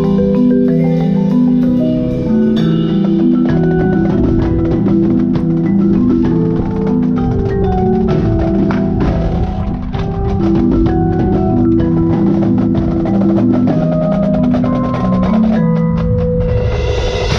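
Marimba played with four yarn mallets, rolling held chords in the low-middle register that change about once a second, with rapid mallet strokes throughout.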